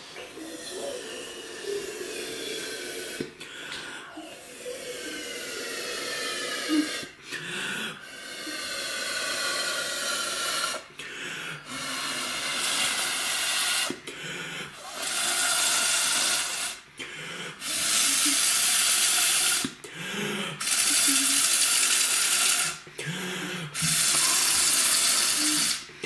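Two people blowing through plastic drinking straws into slime, inflating a large slime bubble: a string of long hissing blows, each a few seconds long, with a faint whistle-like tone sliding down in pitch and short breaks for breath between them. The blows grow louder in the second half.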